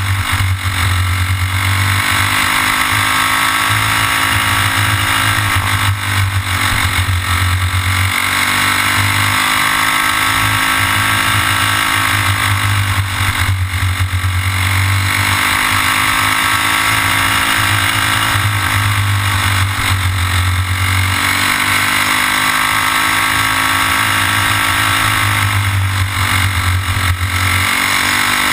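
Racing go-kart's small single-cylinder engine, heard up close from on board at race speed. It revs up along the straights and drops in pitch as it slows for each corner, about every six or seven seconds.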